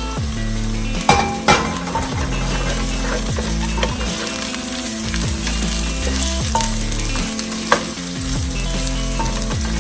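Chopped capsicum and carrot sizzling in hot olive oil with onion, ginger and garlic, being stirred in the pan. A few sharp knocks of the stirring utensil against the pan stand out, twice about a second in and once near the end.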